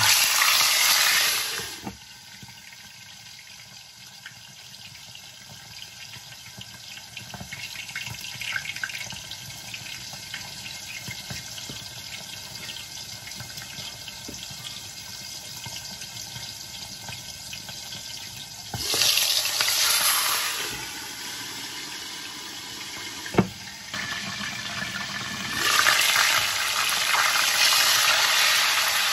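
Chicken leg quarters frying in hot oil: a loud sizzle as the chicken goes into the oil, settling to a steady, quieter sizzle with fine crackling, then loud again in the last few seconds. One sharp knock about three-quarters of the way through.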